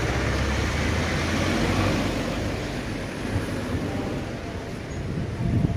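Street traffic: a motor vehicle's engine running close by, its low rumble fading after about two seconds, over steady outdoor street noise.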